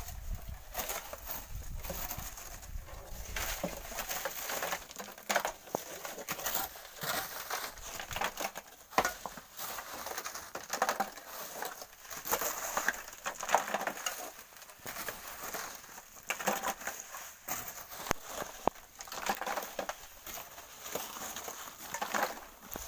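Hand tools digging wet volcanic sand and gravel: a hoe and a shovel biting and scraping into gritty sand and stones in irregular crunching strokes, with sand and rocks dropped into metal wheelbarrows.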